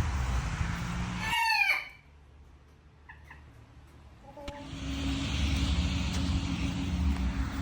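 A rooster crowing, the crow falling in pitch and breaking off about a second and a half in, over a steady noisy background. After a sudden quiet gap with a few faint high chirps, the noisy background with a low hum comes back.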